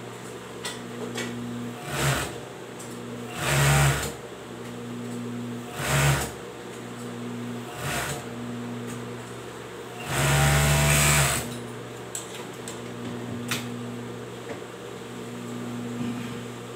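Industrial overlock machine stitching fabric in short bursts, five runs in all, the longest just over a second about ten seconds in. A steady hum carries on between the runs.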